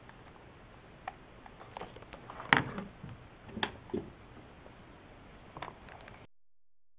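Handling noise of a hard plastic gadget and its cardboard packaging: scattered clicks and knocks, the loudest about two and a half seconds in. The sound cuts off abruptly near the end.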